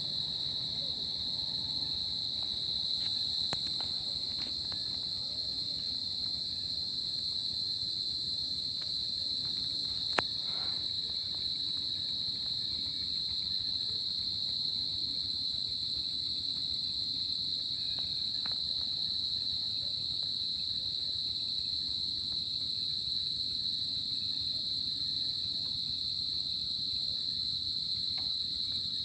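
Crickets chirping in a continuous, steady high-pitched trill. A single sharp click stands out about a third of the way through.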